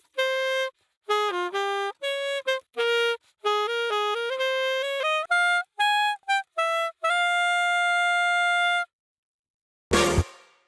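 Alto saxophone played through a studio condenser microphone: a phrase of quick, separate notes that ends on one long held note, then a short silence. A brief sharp burst comes near the end, just before the phrase starts over.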